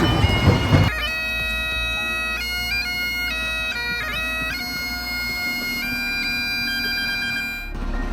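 Great Highland bagpipes playing a slow melody over their steady drones, stepping from note to note. It starts about a second in and cuts off near the end.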